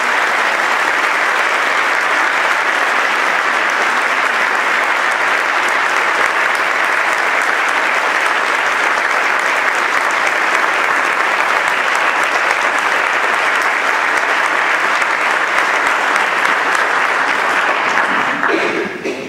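Concert audience applauding steadily, dying away near the end.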